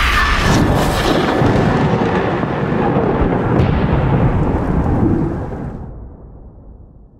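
A long, loud, noisy rumble like rolling thunder, used as a trailer sound effect. It holds for about five seconds, then fades away over the last two.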